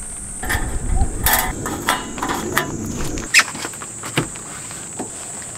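Insects drone steadily at a high pitch. For about the first three seconds a portable gas stove's burner flame rushes low while a mosquito coil is lit over it. A few sharp clicks and knocks of handling follow, the loudest about three and a half seconds in.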